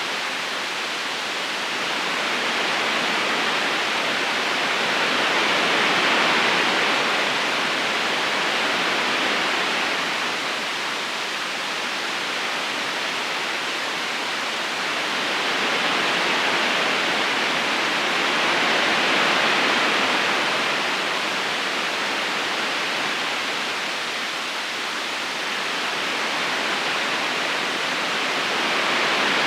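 Steady rushing of a river current flowing over stones, swelling and easing slowly every several seconds.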